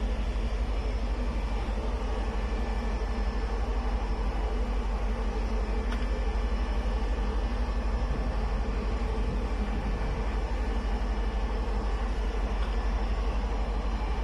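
Strong wind blowing across a ship's open deck in a storm, a steady low rumble with no breaks, mixed with the constant hum of the ship's machinery.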